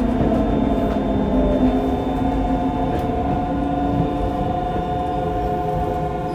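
Yokohama Municipal Subway 3000A train running: a steady rumble of wheels on rail with several steady whining tones from its Mitsubishi GTO-VVVF traction inverter and motors, easing slightly in loudness.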